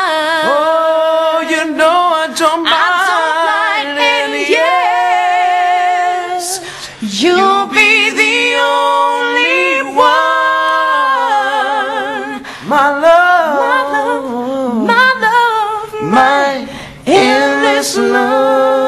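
A man and a woman singing a pop ballad duet unaccompanied, with long held notes sung with vibrato.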